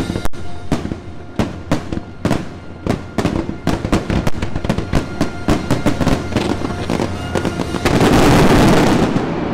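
Fireworks show: a rapid run of aerial shell bursts, several bangs a second, with the show's music underneath. Near the end, a dense finale volley merges into about a second of loud, continuous bursting, which then fades.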